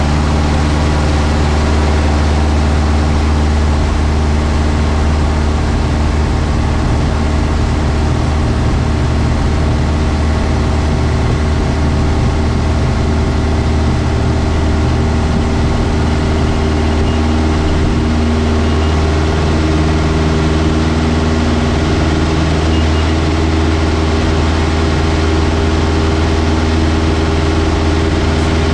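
Robin DR221's four-cylinder piston engine and propeller running steadily at takeoff power through the takeoff roll and climb-out, heard from inside the cockpit.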